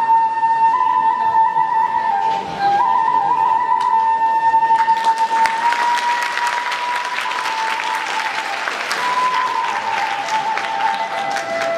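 Kagura flute (fue) playing long held notes that step slowly up and down. About five seconds in, audience applause joins and carries on until near the end.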